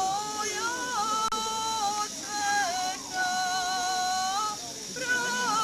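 Women singing a traditional Serbian folk song: held notes in phrases of a second or two, bending briefly between pitches.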